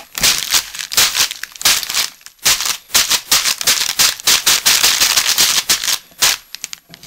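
A plastic packet of dry instant-noodle snack, its noodles crushed into pieces, worked vigorously by hand. The broken noodle bits rattle and crinkle in the bag in repeated strokes, about two or three a second, easing near the end.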